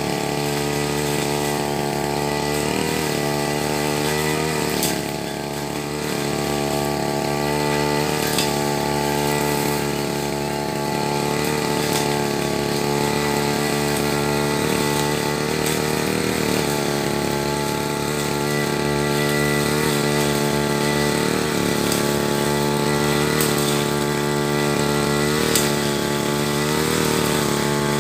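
Backpack brush cutter running at high speed while cutting thick grass. Its engine pitch dips briefly several times.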